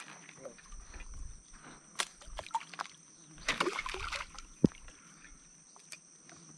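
Fishing lure being retrieved across a river's surface from a kayak: light splashes and a few sharp clicks, with a longer splashy rush about three and a half seconds in and a single knock shortly after, over a steady high-pitched whine.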